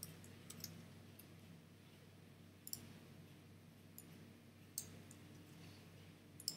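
Faint, sparse clicks of a computer keyboard and mouse: about half a dozen isolated clicks, a second or so apart, over a low steady hum.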